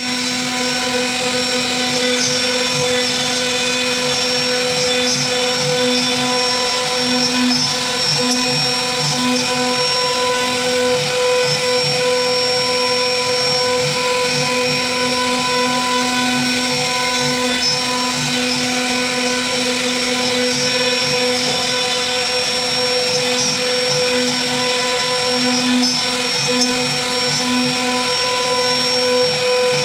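CNC router spindle running with a steady whine while its bit carves a relief into a wooden board; the lower cutting sound swells and eases every second or two as the bit moves through the wood.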